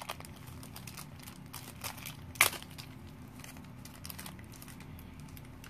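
A small black foil blind-bag pouch crinkling as it is worked open by hand. Rapid small crackles, with one sharp, louder crackle about two and a half seconds in.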